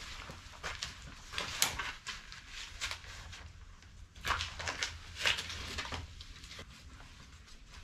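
Footsteps on dry ground and dry sticks clattering and crackling as kindling is handled, in irregular bursts: a loud crackle about a second and a half in and two more clusters between four and five and a half seconds in.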